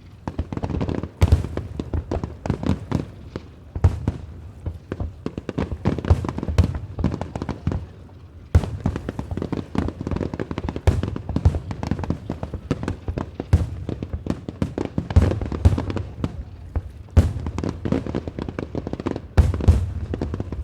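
Fireworks display: a dense, continuous barrage of sharp bangs and crackling bursts, with a brief lull about two-fifths of the way through before the shots pick up again.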